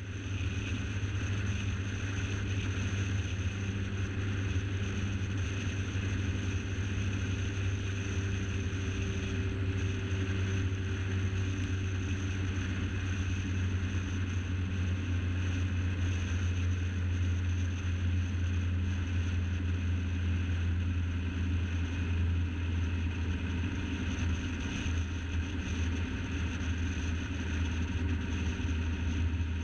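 A car driving at steady cruising speed: a steady engine hum with tyre and wind noise, unchanging throughout.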